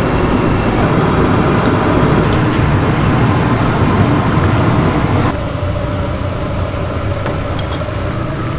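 Steady rushing noise of a commercial gas range's burners heating stone pots of loach soup. It drops suddenly about five seconds in.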